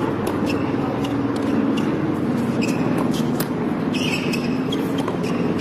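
Tennis ball bouncing and being struck by rackets on a hard court: short sharp hits as a serve is made and the rally goes on, over a steady low background hum.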